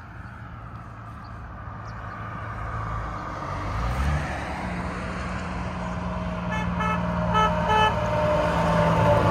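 A box truck passes about four seconds in. Then an approaching semi truck sounds its air horn in four short blasts, and its diesel engine grows louder near the end.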